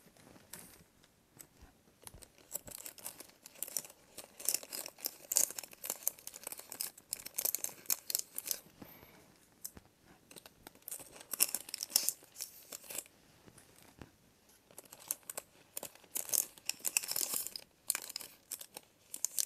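Wrapping on a small package being torn open and crinkled by hand, in irregular clusters of crackling.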